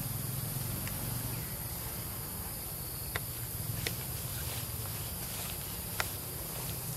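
Steady high-pitched insect drone, with a few sharp clicks about three seconds in, just before four seconds and at six seconds.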